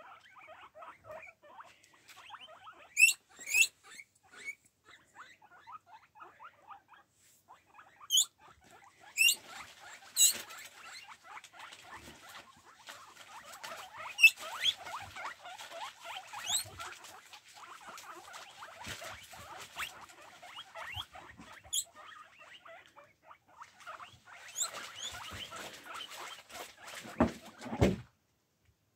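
Excited young guinea pigs squeaking and chirping in a busy, constant stream of short calls. Several loud, sharply rising wheeks break through it at intervals.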